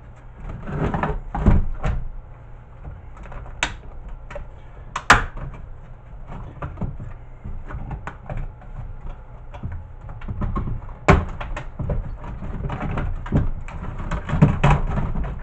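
Plastic VHS player casing and its circuit board being handled and pried apart by hand: irregular knocks, clicks and rattles, with a few sharp clicks.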